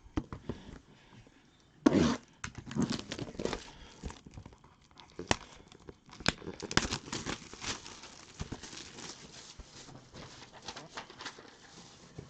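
Plastic packaging being torn open and crinkled by hand as a packaged sports memorabilia jersey is unwrapped, in a series of irregular crackles and rustles.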